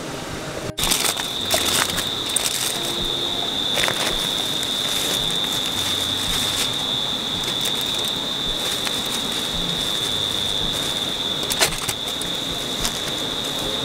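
River water rushing steadily, with a high, even insect buzz, likely cicadas or crickets, that comes in about a second in. A few sharp crackles or clicks sound over it.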